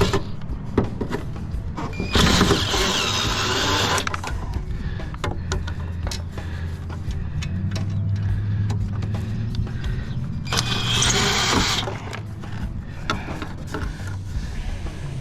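Power drill/driver run in two bursts on the screws holding a PTAC fan motor, the first about two seconds in and the second near the end, with clicks and clatter of metal parts between them.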